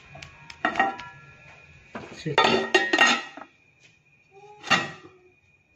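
Aluminium cooking pot and its metal lid clanking as the pot is covered for slow steaming (dum): a few knocks, a burst of clattering about two seconds in, and one last ringing clank near the end.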